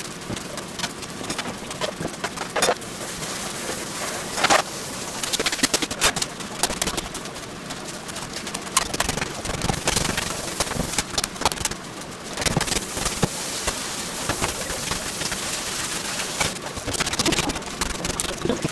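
Ground meat for hamburg steak being kneaded by hand in a stainless steel bowl: irregular wet squelches mixed with the crinkle of thin plastic gloves.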